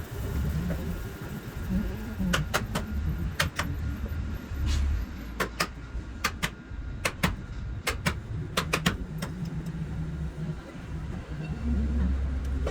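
A series of sharp knocks in irregular clusters, two to four at a time, over a steady low rumble.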